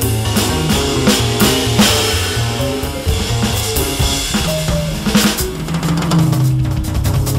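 Roland V-Drums electronic drum kit played in a swinging jazz four-beat: snare, bass drum and cymbal sounds from the drum module. It plays over a sequenced backing with a bass line that steps from note to note under held chords.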